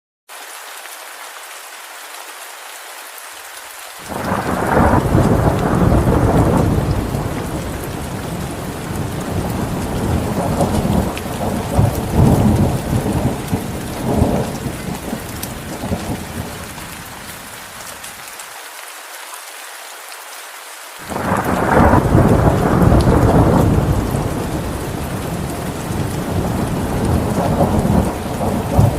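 Steady rain falling, with rolling thunder: a long rumble starts about four seconds in and fades out over some fifteen seconds, and a second rumble breaks in near the end.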